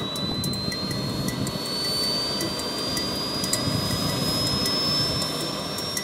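A UAV's small jet engine starting up: a steady rushing noise with a high whine that climbs slowly and evenly in pitch as the turbine spools up.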